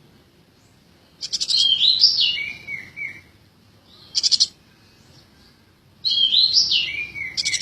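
Eurasian tree sparrow chirping in three bursts: rapid strings of sharp high chirps, followed by lower sliding notes. The bursts come about a second in, around four seconds in, and from about six seconds on.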